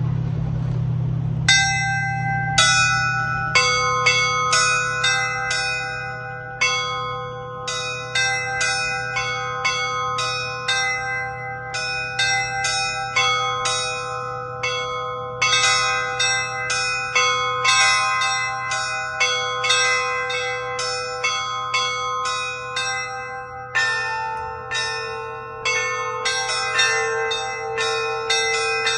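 Russian Orthodox church bell ringing (zvon): small treble bells struck in a quick, repeating pattern over middle bells, all ringing on between strokes. The pattern starts about a second and a half in, over a steady low hum, and a lower bell joins the pattern near the end.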